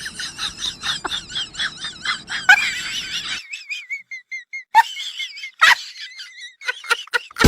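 A small animal's repeated high-pitched warbling cries, about three to four a second, that give way about three and a half seconds in to fainter short chirps with a couple of sharp clicks.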